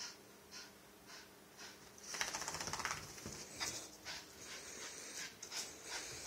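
A small wet dog scrambling and rubbing itself against a blanket and carpet to dry off. There are faint rustles about twice a second at first, then about two seconds in a louder, busy run of scratching, scuffling and clicks.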